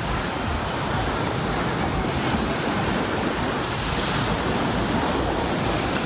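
Small sea waves washing steadily onto a sandy beach, with wind on the microphone.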